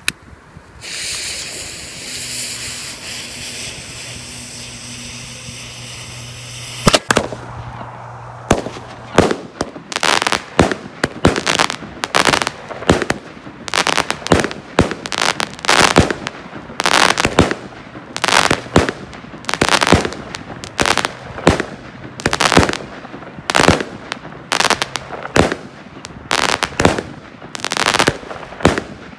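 Firework cake (a 25-shot Mirnovec Tornado box) being fired: the lit fuse hisses for about six seconds, then the shots start with a sharp bang. A rapid string of loud bangs follows, roughly one or two a second, each shot's burst ending in crackling stars.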